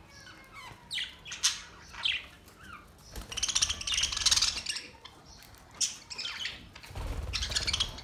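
A flock of budgerigars chirping and squawking in short calls, with two louder bursts of dense chattering, one around the middle and one near the end.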